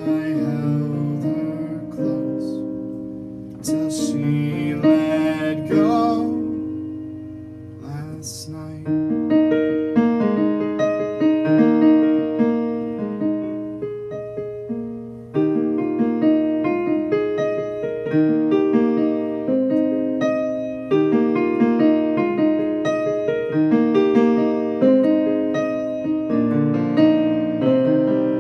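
Piano playing a slow, gentle ballad accompaniment in repeated chords, each note struck and left to fade. A voice sings briefly in the first several seconds, then the piano carries on alone.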